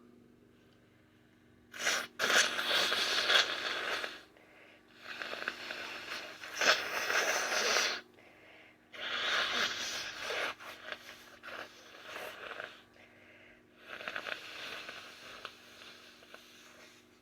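A woman's sneezing fit: four long, breathy, noisy bursts a few seconds apart, each starting sharply.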